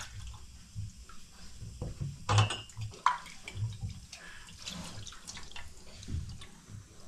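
Hands swishing and splashing water in a metal pot while washing something by hand, with irregular splashes and drips; the loudest splash comes about two and a half seconds in.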